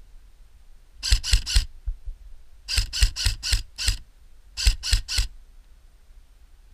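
Airsoft rifle firing plastic BBs in three short strings of rapid shots, about five a second: three shots about a second in, six more near the middle, then three or four near the end.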